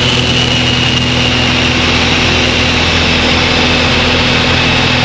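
Aerobatic stunt plane's piston engine and propeller running hard, heard from inside the cockpit: a steady low drone with a high whine over it that falls slightly in pitch.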